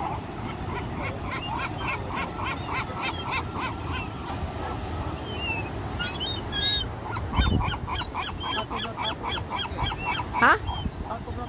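A flock of gulls calling in fast runs of short, repeated notes, several a second, with one louder sweeping cry near the end, over the steady wash of surf.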